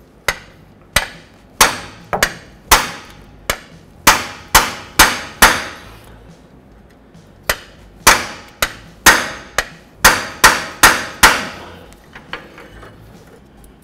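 Hammer striking a freeze plug installer, a driver cup on a long extension bar, driving a steel freeze plug flush into the engine block along its bottom edge. Sharp blows that each ring briefly, about ten in quick succession, a pause of about two seconds, about nine more, then a few light taps near the end.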